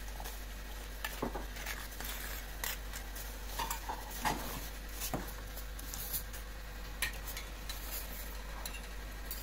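Cutlery clinking against a plate: about ten light, scattered clinks and scrapes at uneven intervals.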